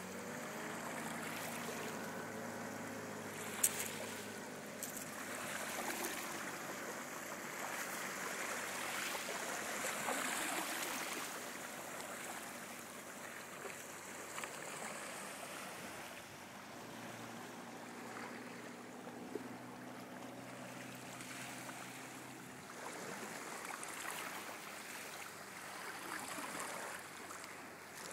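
Small waves lapping at a sandy shoreline, with wind blowing over the microphone and rising and falling in gusts. A faint low hum comes and goes, and there is one sharp click about three and a half seconds in.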